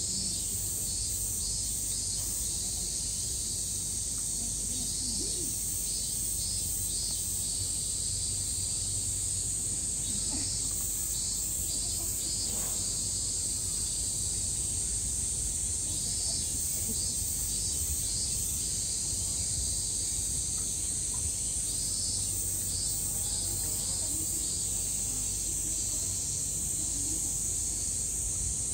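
Cicadas buzzing in a steady high-pitched summer chorus, with a pulsing call coming and going over it every few seconds.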